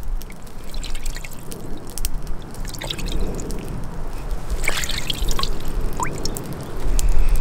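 A knife blade being rinsed by hand in a bowl of water: small splashes, sloshes and drips as fingers rub the blade in the water, with a few droplet plinks. A low rumble rises near the end.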